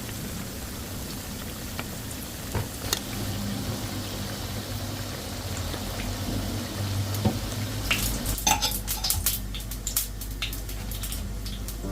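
Food sizzling in a frying pan while a utensil stirs it, with scattered clicks and taps against the pan. The clatter gets busier about two-thirds of the way in.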